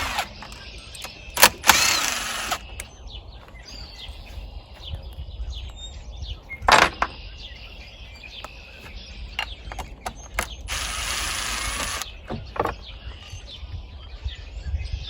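Hand tools working the outboard's cylinder head bolts: a socket ratchet clicking in two short spells, with a few sharp metal clinks between.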